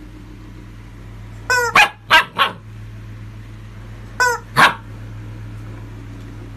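Rubber chicken toy squeaked twice, each squeak answered by a puppy's short high barks: three quick barks after the first, one after the second.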